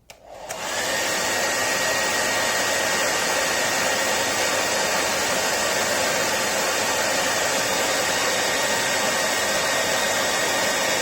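A hair dryer with a diffuser fitted is switched on with a click and spins up within about a second. It then runs steadily at full power as a dense airy rush with a thin high whine over it.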